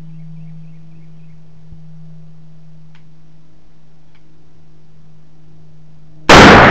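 A steady low hum, then a single shot from a Barrett .50 BMG rifle near the end: a sudden, very loud blast that rings out.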